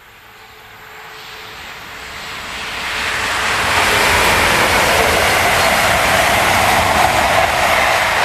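An East Midlands Trains Class 222 Meridian diesel train approaching and passing at speed. Its rush of engine and wheel noise grows steadily louder over about four seconds, then stays loud and steady.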